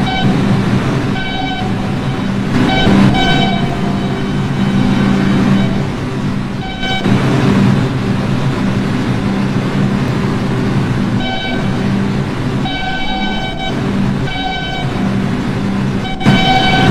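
New York City subway train running between stations, with a steady low hum and rumble. A high-pitched ringing tone cuts in and out about seven times, each for half a second to a second.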